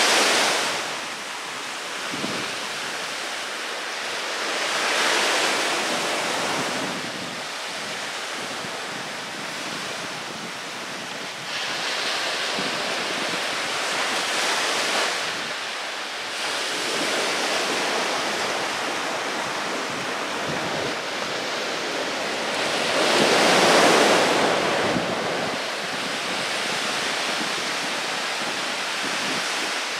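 Small waves breaking and washing up on a sandy beach, the surf swelling and easing every few seconds, with the biggest wave about three-quarters of the way through.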